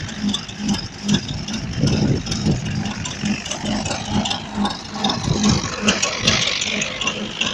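Vintage Saunderson tractor engine running under load with a slow, even beat of about two to three pulses a second. A brief hiss comes in about six seconds in.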